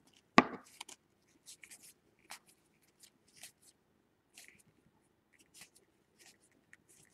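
Baseball trading cards being flipped through by hand, the card stock sliding and flicking off the stack in a string of short, soft brushing sounds, with one sharper snap about half a second in.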